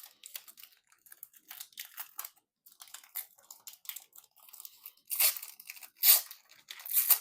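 Wrapper of a Magic: The Gathering collector booster pack crinkling and tearing as it is opened: a run of small crackles, with three louder tearing bursts in the last two seconds.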